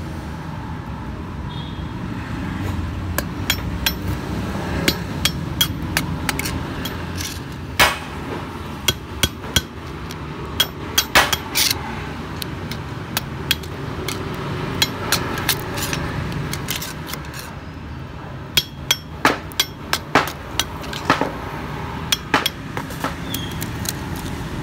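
Irregular sharp metallic taps and knocks of a metal rod striking inside the steel slots of a stripped three-phase motor stator, coming in clusters, over a steady low background rumble.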